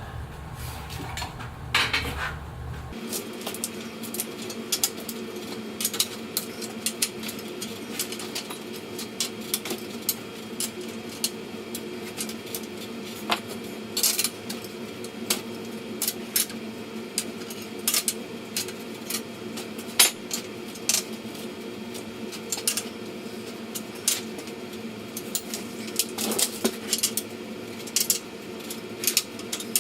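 Irregular light clinks and clicks of small hard objects being handled, over a steady faint hum.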